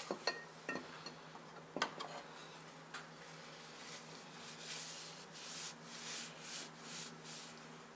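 Knives being dipped into a glass jar of boiled linseed oil: a few light clicks of the knife against the glass early in, then a run of soft rubbing strokes about twice a second, over a faint steady hum.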